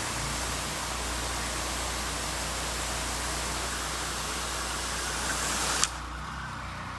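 Engine-driven 5.5 gallon-per-minute, 2500 psi pressure washer running, its spray hissing from the very start and stopping sharply about six seconds in. The engine's low hum carries on after the spray stops.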